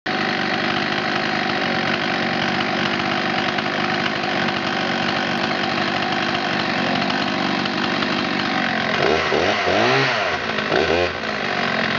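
Husqvarna 61 chainsaw's two-stroke engine idling steadily, then revved up and back down twice near the end.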